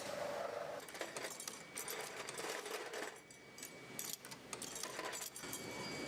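Small metal parts, plier pieces in production, clinking and clattering against each other in irregular sharp clicks.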